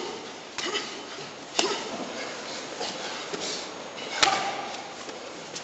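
Gloved MMA punches landing on a man pinned on the mat: a few sharp slaps and thuds, the loudest a little after the four-second mark, over gym room noise.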